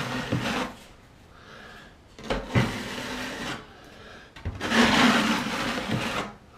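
A drywall knife scraping and spreading joint compound in three long strokes, with short pauses between them.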